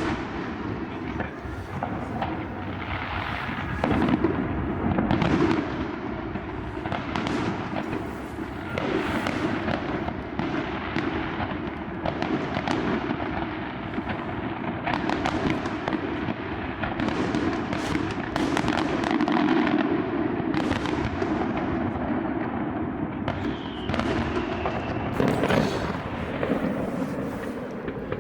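Fireworks display: a dense, continuous barrage of bursts and crackling, with the loudest booms about four to five seconds in, again in the middle, and near the end.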